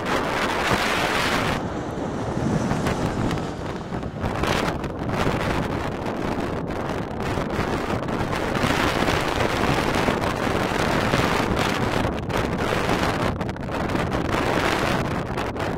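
Strong gusty wind buffeting the microphone, mixed with the jet noise of an Airbus A320-family airliner on approach with its landing gear down as it passes overhead and flies away. The sound swells and dips with the gusts.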